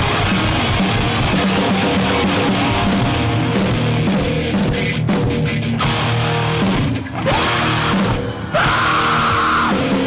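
Live heavy rock band playing loud, with distorted electric guitar, bass and drums. The sound breaks off briefly twice, about seven and eight and a half seconds in.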